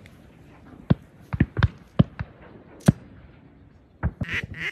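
A series of about ten irregular dull thumps and knocks, then in the last second a quick run of quacks.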